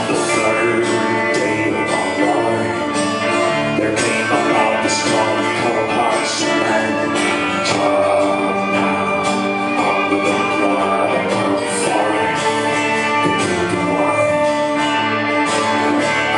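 A live band playing an instrumental passage of a song, with strummed guitars over a steady percussion beat.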